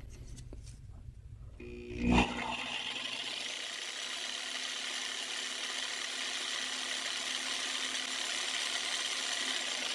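The Power Fist 6-amp reciprocating saw's brushed motor and gears start up about two seconds in and run steadily at full throttle with no load. Before that there is only a faint low hum.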